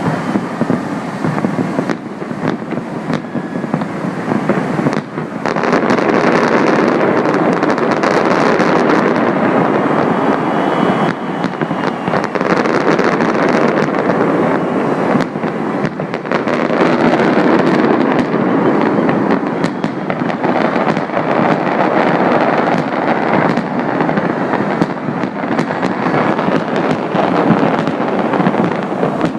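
Aerial fireworks display: a dense, continuous barrage of bursts and crackling that grows louder about five seconds in and stays heavy.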